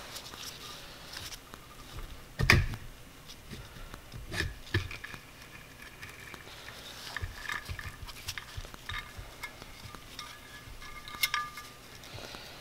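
Metal knocks, clinks and light scraping as the cylinder head of a 2010 Yamaha YZ250F engine is worked loose and lifted off the cylinder by hand, with a louder knock about two and a half seconds in and a sharp clink near the end.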